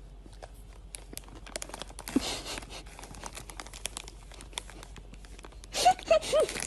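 Crinkling and rustling, like plastic or paper packaging being handled, with many small clicks. It is busiest about two seconds in. Near the end come a few short, high squeaks.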